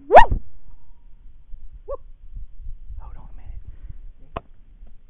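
A single loud yelp that sweeps sharply upward in pitch. About two seconds in there is a brief, faint two-note squeak, and a sharp click comes near the end.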